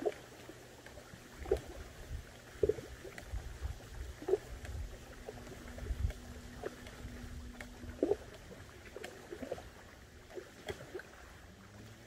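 Kayak paddle strokes dipping and splashing in lake water, a short splash about every one to two seconds, from a one-piece foldable plastic paddle, over a low rumble and a faint steady hum.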